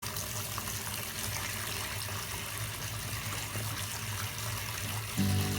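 Water running steadily from a tap, as for a bath. Music comes in near the end.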